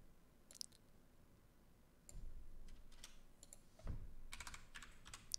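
Faint typing on a computer keyboard, in scattered runs of short key clicks.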